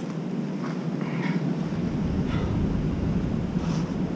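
Wind buffeting the microphone over a steady wash of sea, with the low rumble growing about two seconds in, and a few faint handling sounds.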